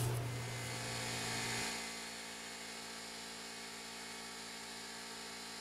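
Pneumatic angle die grinder with a small wire wheel running steadily, cleaning rust and scale off a brake caliper bracket's pad contact surfaces.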